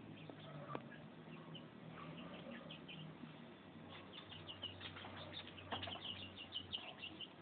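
Chickens making short, high chirps, sparse at first and then coming thick and fast through the second half, with a few sharp knocks.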